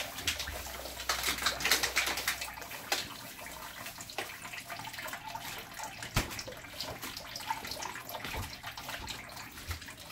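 Light kitchen clatter and rustling over a steady hiss, busiest about one to three seconds in.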